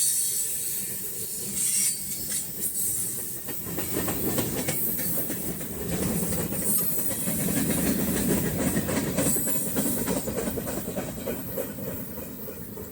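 Freight train of box cars rolling past, wheels clacking over the rail joints with a steady rumble and high hiss that ease off near the end.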